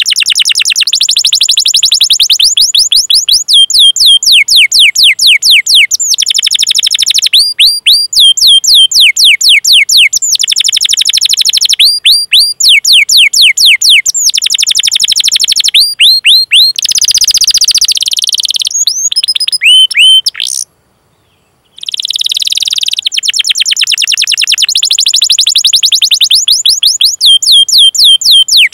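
Domestic canary singing loudly: fast rattling rolls alternating with runs of repeated falling 'cuit-cuit' chirps, with a break of about a second a little past two-thirds through.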